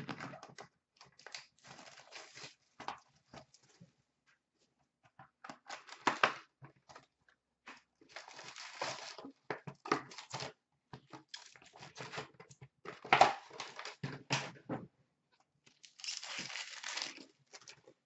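Irregular bursts of tearing and crinkling as a 2016-17 Upper Deck SP Authentic hockey card hobby box is torn open and its packs are pulled out and handled. The loudest tear comes about two thirds of the way through.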